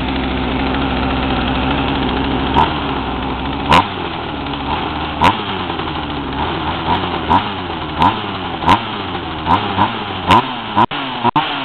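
Two-stroke Craftsman chainsaw engine idling steadily, then revved in short blips about once a second from about four seconds in. Each blip climbs and falls straight back, with a sharp click, and the saw bogs under throttle, which the owner suspects is a carburetor adjustment problem.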